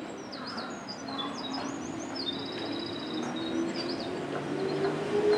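JR West 221 series electric train pulling away from the platform, its motors giving a whine that climbs in pitch and grows louder as it gathers speed. Small birds chirp and trill over it through the first few seconds.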